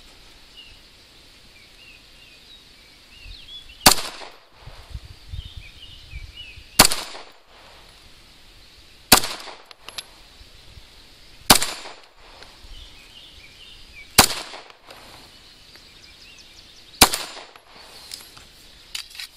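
Six 9mm pistol shots from a SIG Sauer M11A1 firing 115-grain remanufactured range ammunition, fired one at a time two to three seconds apart, each a sharp crack with a short trailing echo.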